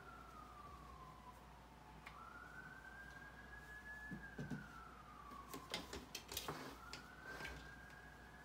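Faint siren wailing, slowly rising and falling in pitch. About six seconds in, a quick cluster of light taps and clicks stands out above it.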